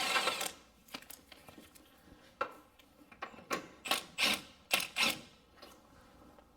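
Scattered light metallic clicks and knocks of hand tools being handled, with a brief rush of noise right at the start.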